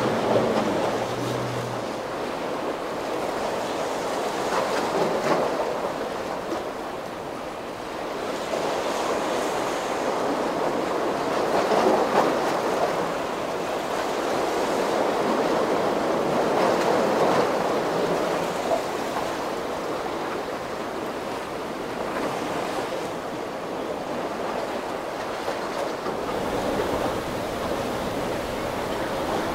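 Rough inlet water and breaking waves rushing and churning, swelling and easing every few seconds.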